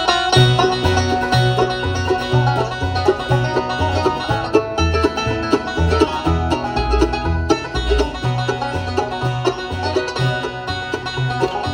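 Bluegrass band playing: fast picked banjo over guitar, with a bass line stepping between two low notes about twice a second.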